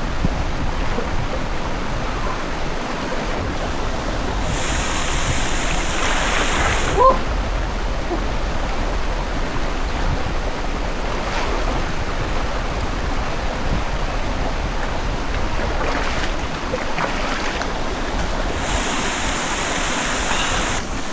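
Steady rushing of river water, with two spells of brighter hissing about four seconds in and near the end, and a short rising chirp about seven seconds in.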